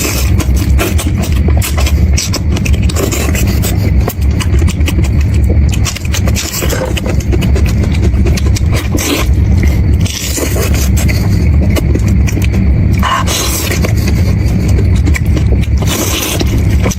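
Repeated scraping and clicking over a steady low rumble.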